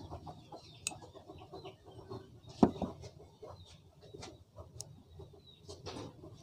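Faint clicks and taps of a small metal vape coil handled in a plastic clip, the sharpest tap about two and a half seconds in, with faint clucking in the background.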